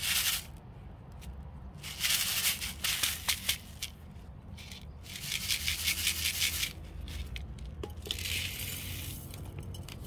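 Coarse masato (decomposed granite) grit rattling and grinding in a plastic sieve as it is shaken in four bouts, sifting the fine soil out of used potting mix.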